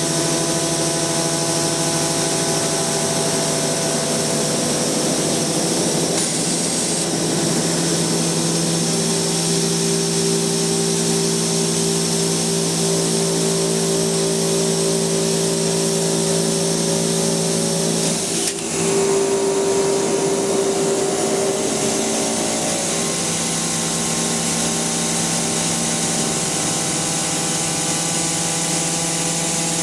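Milling machine spindle running and its cutter machining the workpiece: a steady mechanical whine of several held tones over continuous cutting hiss, with a brief dip and change in the tones about two-thirds of the way through.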